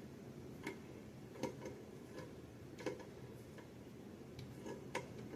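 Faint, irregular small metallic clicks, about five in all, from the pliers of a Gerber Dime multi-tool gripping and turning a fitting to loosen it.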